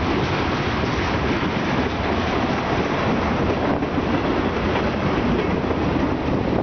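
Freight train cars (tank cars, then autorack cars) rolling past: a steady rumble of steel wheels on the rails.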